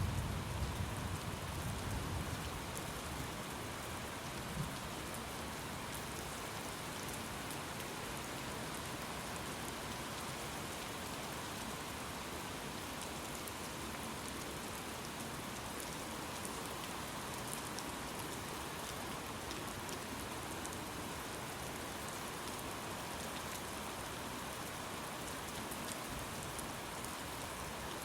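Steady heavy rain falling. A low thunder rumble dies away over the first couple of seconds.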